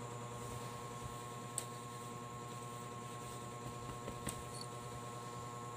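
Quiet small-room background with a steady electrical hum, and two faint light clicks, one about a second and a half in and one a little past four seconds.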